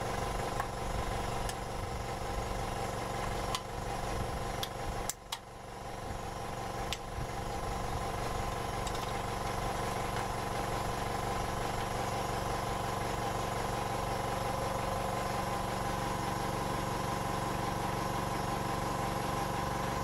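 Hydraulic press's pump motor running steadily with a constant hum, with a few light clicks and knocks in the first seven seconds and a brief drop in level about five seconds in.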